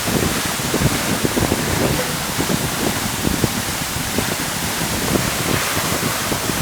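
Waterfall pouring close by: a loud, steady rush of falling water with irregular spattering throughout.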